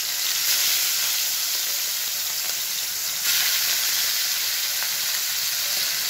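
Salt-and-turmeric-coated bata fish sizzling as they shallow-fry in hot oil in a frying pan. The sizzle steps up twice, about half a second in and just after three seconds, as more fish are laid into the oil.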